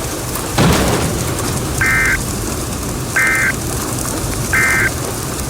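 Three short bursts of buzzy two-tone digital data, a second or so apart: the EAS/SAME end-of-message code that closes a weather radio tornado warning. A steady background hiss runs under them, with a brief noisy hit about half a second in.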